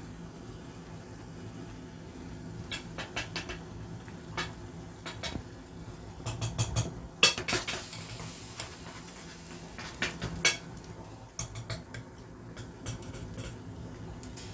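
Ramen being eaten: utensils clicking and tapping against a bowl, with small chewing and mouth sounds. The clicks come irregularly and are busiest and loudest about six to eight seconds in.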